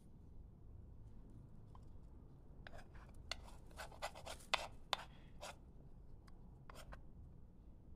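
A metal table knife scrapes sticky bread dough off a wooden spoon, making a run of short scrapes and clicks in the middle and a couple more near the end.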